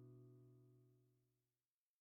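Background music ending on a held chord that fades away, dying out about a second and a half in.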